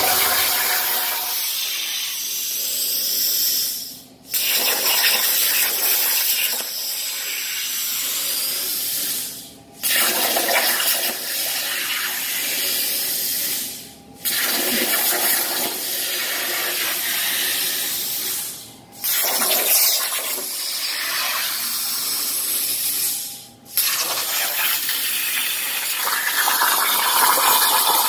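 Trucutcnc G3 CNC plasma table cutting 16-gauge cold-rolled mild steel on its 45-amp fine-cut process: the torch arc makes a steady rushing hiss. It stops abruptly five times, about every four to five seconds, as the torch goes out between shapes, and starts again sharply at each new pierce.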